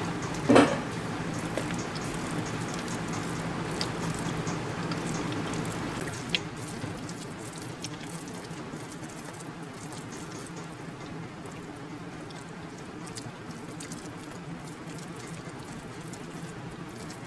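Wet eating sounds of soft rice being eaten by hand: a loud mouth smack as a handful goes in about half a second in, then chewing and fingers squishing and mixing soft rice on a steel plate, with a sharp click about six seconds in.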